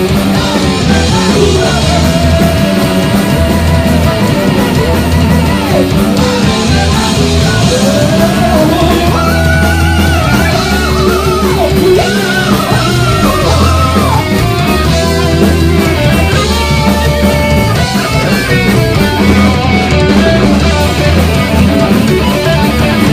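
Heavy metal band playing live, loud and dense: electric guitars and drums over a heavy low end. A lead melody with bends and wavering pitch stands out from about nine to fourteen seconds in.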